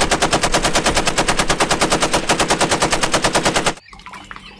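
Rapid, even machine-gun fire sound effect, about ten shots a second, that cuts off abruptly near the end.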